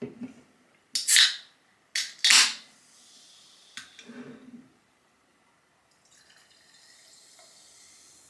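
Aluminium can of carbonated hard seltzer cracked open: a click, then a sharp hiss of escaping gas, twice about a second apart. It is followed by a faint steady fizzing as the seltzer is poured out.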